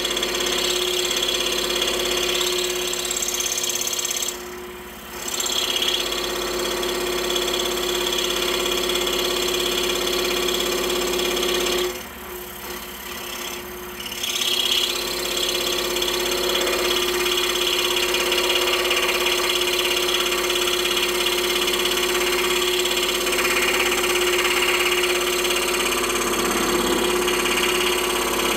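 Scroll saw running, its blade reciprocating through a block of wood about an inch and a half thick to cut the interior openings of chain links. The motor's steady hum sits under the cutting noise. The sound goes lighter twice, briefly, about four seconds in and again around twelve to fourteen seconds in.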